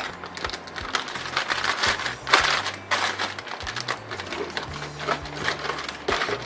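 Background music with a steady bass line, over scattered clicks, knocks and rustles of hands handling computer parts and packaging. The loudest knock comes about two seconds in.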